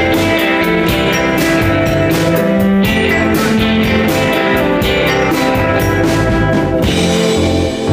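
Live rock band playing loud, guitar-led music over drums, with steady cymbal strokes.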